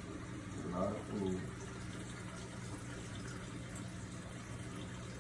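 Steady hum and running-water noise from a marine aquarium's pumps and circulating water. About a second in, a brief human vocal sound rises above it.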